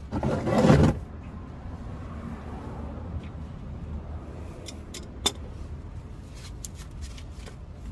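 A loud scraping rustle in the first second, then scattered sharp metallic clicks and clinks of a wrench being worked on an oil drain plug under a car, one loud click about five seconds in and several more near the end, over a steady low hum.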